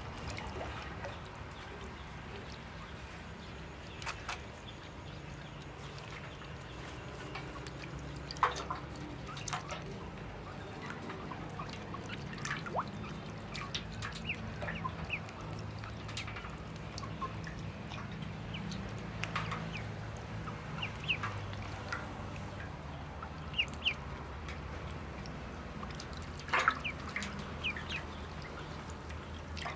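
Ducklings peeping now and then with short high calls while they paddle and dabble in a shallow metal basin of water, with small splashes and drips. A steady low hum runs underneath.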